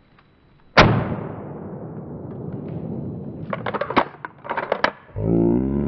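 Slowed-down replay of a shotgun shot: one blast about a second in, drawn out into a long fading boom. A cluster of sharp clicks and cracks follows about three seconds later, and a deep, drawn-out slowed-down voice begins near the end.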